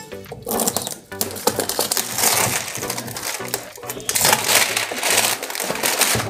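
A sealed cardboard box being opened by hand: its tape seal is scraped and slit with metal tweezers, then the cardboard and inner packaging rustle and scrape as the box is pulled open.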